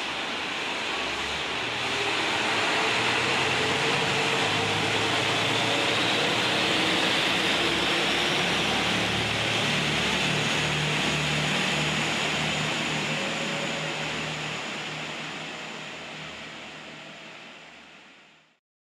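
JR Kyushu KiHa 185 series diesel multiple unit pulling away, its diesel engines roaring hard under load with a faint whine rising in pitch. It grows louder about two seconds in, then fades away near the end.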